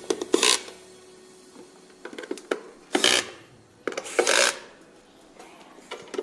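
Screwdriver turning metal cam locks in laminate furniture panels to tighten them: three short scraping sounds, with light clicks and knocks in between.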